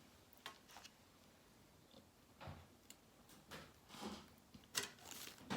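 Mostly quiet room with a scattering of faint clicks and soft rustles from small items being handled during an unboxing.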